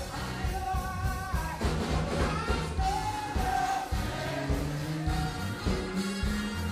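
Gospel music: singers holding and bending notes over a band with bass and a steady beat.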